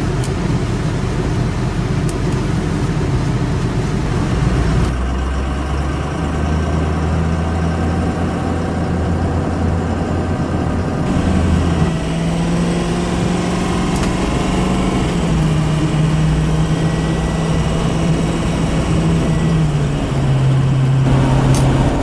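Pickup truck's engine drone and road noise heard from inside the cab while driving on the highway. The engine's low hum steps to a different pitch several times.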